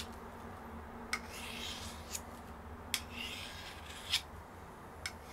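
A Pirat Starshina knife's 40Kh13 steel blade being drawn across a sharpening stone by hand. The slow rasping strokes come with sharp clicks about once a second.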